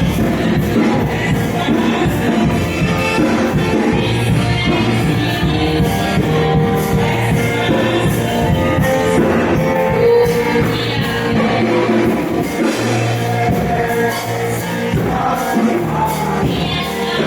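Live gospel praise music: a band with bass and drums keeping a steady beat under singing.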